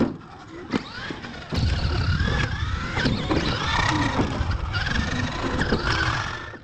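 Radio-controlled monster truck's motor and drivetrain whining up and down in pitch as the throttle is worked, with tyres scrabbling on dirt. A sharp knock comes at the very start as the truck comes down, and the sound cuts off suddenly near the end.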